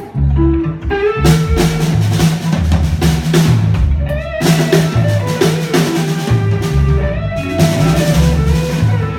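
A live rock band playing a song on drum kit and guitar, with a steady beat.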